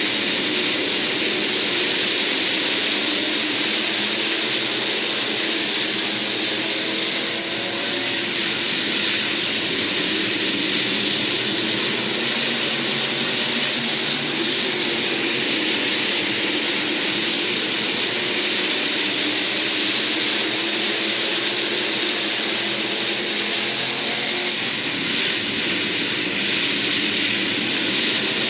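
A pack of IMCA SportMod race cars running at speed, their V8 engines forming a steady wall of engine noise with pitches rising and falling as the cars accelerate and lift.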